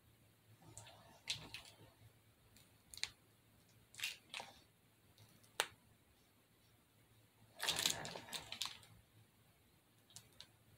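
Faint crinkling and rustling of a plastic piping bag squeezed in the hand: scattered short crackles, then a longer rustle about eight seconds in.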